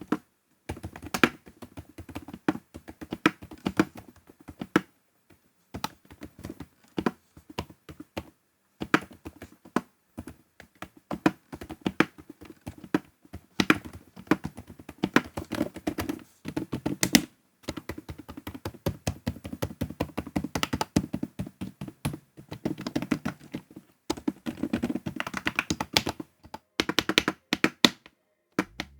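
Typing on a Moeetech GLITTER65 HE Hall effect keyboard fitted with ultra-silent switches: quick runs of soft, muted keystrokes broken by several short pauses.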